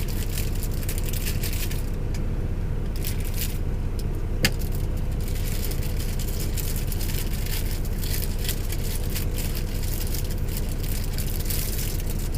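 Small scrapes, taps and rattles of sandwich-making on a chopping board, with one sharp click about four and a half seconds in, over a steady low hum in the truck cab.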